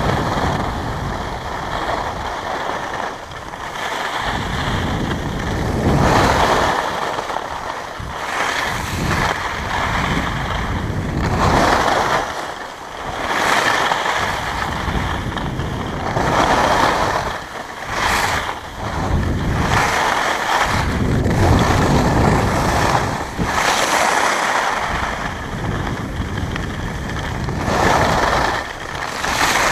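Wind rushing over an action camera's microphone while skiing downhill, swelling and easing every few seconds, mixed with the hiss of skis sliding on packed snow.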